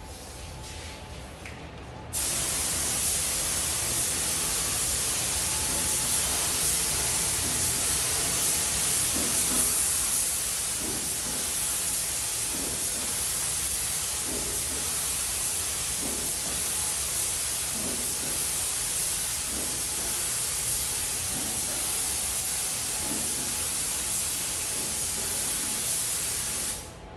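Gravity-feed compressed-air spray gun hissing steadily as it sprays metallic paint onto a test panel. A quieter air hiss comes first; the loud spray starts abruptly about two seconds in and cuts off suddenly at the end.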